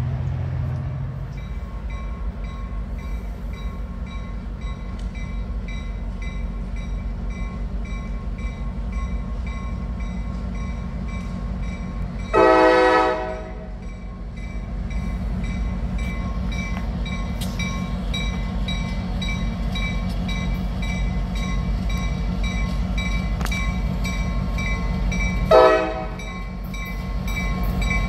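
EMD GP38-2 diesel switcher locomotive with a 16-cylinder two-stroke engine, running with a steady low rumble. Its horn sounds twice: a blast of about a second roughly twelve seconds in, and a shorter, louder toot near the end.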